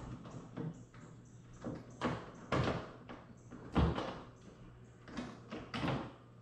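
Hand tools working plastic trim rivets and screws out of a car's underside: about eight irregular short scrapes and clunks, over a faint steady hum.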